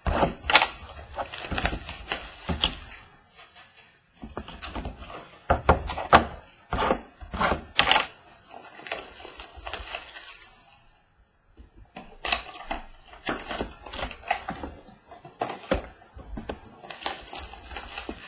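A cardboard trading-card box being opened and its foil-wrapped packs pulled out and set down on a table: irregular rustling and crinkling with sharp taps and knocks, pausing briefly twice.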